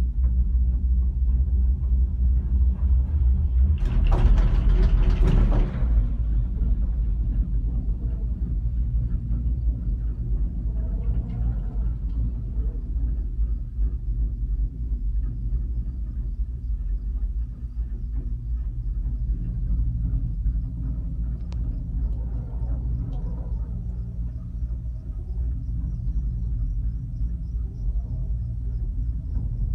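Steady low rumble of a gondola cabin riding the cable. About four seconds in, a louder rattling rumble lasts about two seconds as the cabin runs through a lift tower's sheaves.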